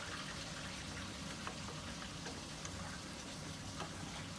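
Steady hiss of water running through household plumbing as a toilet refills after a flush, with faint scattered clicks.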